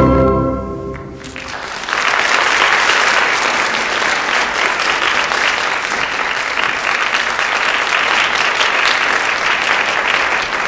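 Recorded ballet music fades out in the first second, then an audience claps steadily.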